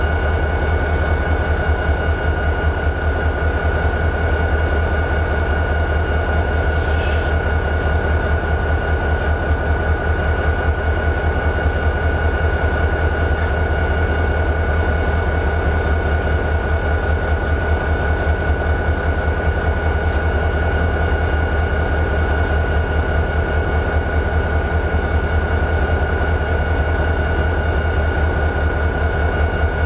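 EMD 645 V16 turbocharged diesel of a CSX GP40-2 locomotive idling: a steady, fast low beat with a constant high tone over it.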